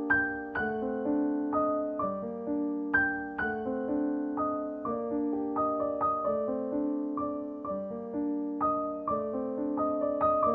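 Background piano music: soft notes and chords struck about twice a second, each dying away.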